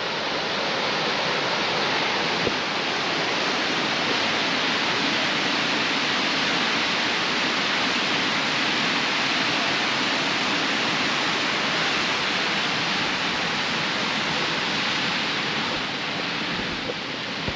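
Steady, even rush of a large waterfall's falling water.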